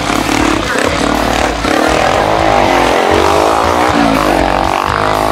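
Dirt bike engine revving, its pitch climbing from about two seconds in, dipping around four seconds and climbing again near the end, over a steady low engine rumble.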